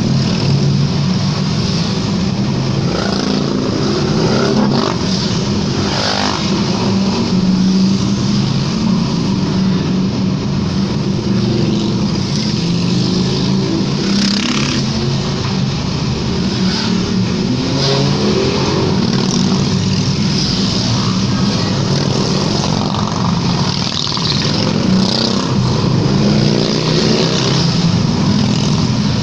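A long convoy of motorcycles riding past one after another into a road tunnel, their engines running and echoing off the tunnel walls, with single bikes rising and falling in pitch as they pass.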